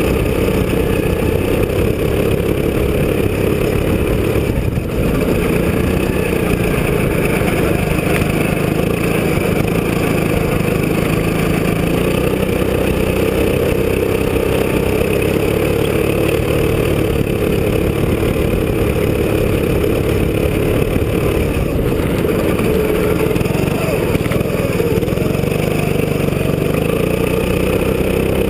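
Go-kart engine running under load, heard close up from on board the kart, its pitch rising and falling a little as the kart is driven.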